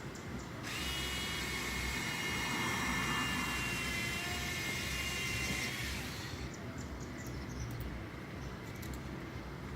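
Power drill running with a small bit, boring a pilot hole in a car bumper. It is a steady whine that starts just under a second in and stops about six seconds in, followed by a few faint clicks.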